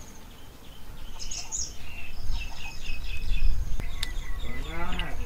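Birds chirping and calling over a steady high buzz of insects, with one quick run of repeated chirps about two seconds in; a voice begins near the end.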